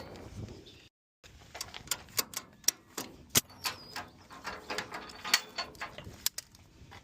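A run of irregular sharp clicks and knocks, like hand work on gear or metal parts, broken by a brief cut to silence about a second in.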